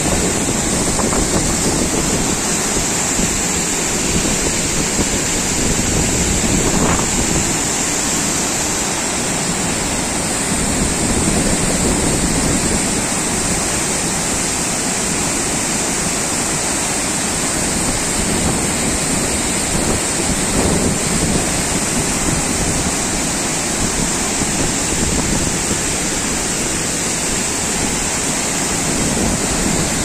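Heavy flow of water spilling over a dam weir and crashing down a rocky waterfall: a loud, steady rush of water.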